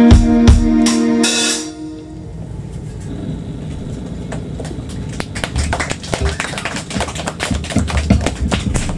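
Live rock band of electric guitars, bass and drum kit hitting the last chords and drum strokes of a song, which cuts off about a second and a half in and rings out. Scattered audience clapping follows and grows thicker near the end.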